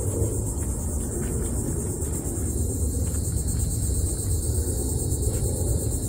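A steady low rumble with a continuous high, pulsing buzz of insects over it.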